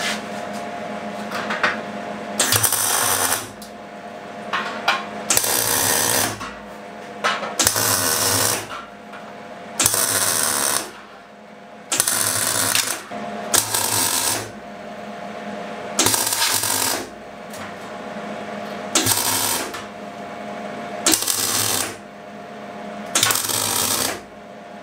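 MIG welder tack-welding a perforated steel grate into a sheet-steel box: about ten short crackling bursts of arc, each under a second, one to two seconds apart.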